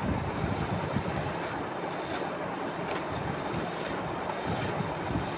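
Potato and pointed gourd pieces frying in oil and spice paste in a frying pan while being stirred with a spatula: a steady sizzling hiss.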